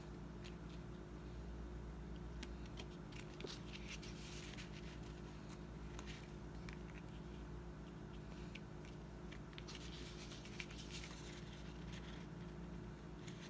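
Faint rustling and small ticks of paper stickers being peeled from a sticker sheet and pressed onto planner pages, over a steady low hum.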